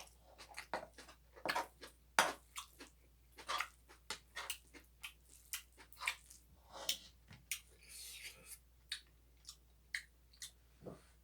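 A person chewing and eating close to the microphone: a run of irregular wet smacks and clicks.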